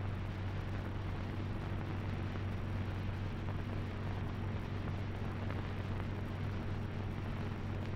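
Steady low hum with an even hiss over it, unchanging throughout: the background noise of an old film soundtrack between narration lines.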